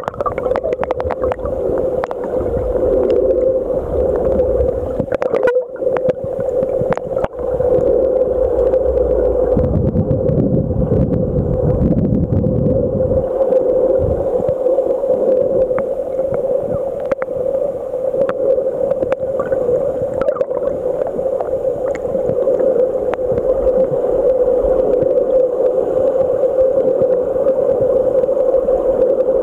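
Muffled underwater sound picked up by a submerged camera: a steady mid-pitched hum with scattered sharp clicks and knocks, and a low rumble from about ten to thirteen seconds in.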